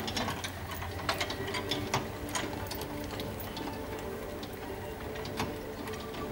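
Scattered, irregular light clicks over a steady faint hum.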